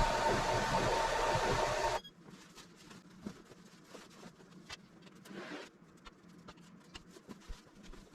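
Electric motor of an automatic wallpaper pasting machine running with a steady whine, then stopping abruptly about two seconds in, followed by light clicks and handling noises.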